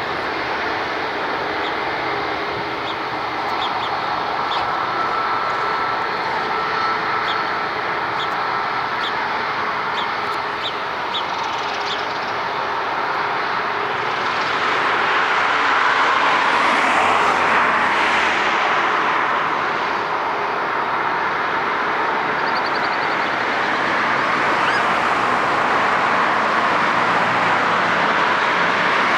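Jet engine noise from an Airbus A330-202 on departure, a steady, loud rush that swells about halfway through.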